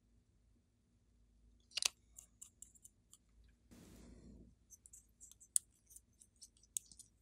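Small plastic bottles and caps being handled: scattered sharp clicks and taps, with a short rustle about four seconds in.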